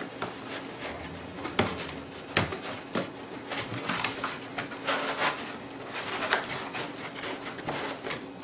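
Cardboard packaging being handled: boxes and inserts pulled, slid and opened, with irregular knocks, scrapes and rustles.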